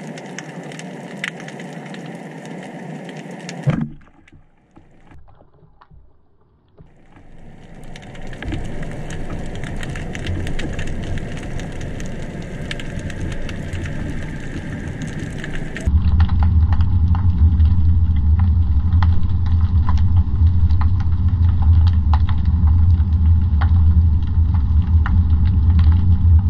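Underwater sound picked up by a diver's camera in its housing: a steady hiss full of small clicks and crackles, with a single sharp thud about four seconds in. The sound then drops away, builds up again, and from about two-thirds of the way through turns into a louder low rumble with crackling.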